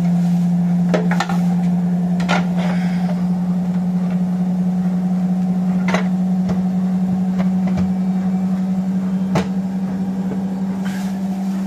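Washing machine drain pump running with a steady low hum, pumping normally now that the debris blocking it has been cleared. A few sharp clicks and knocks sound over it.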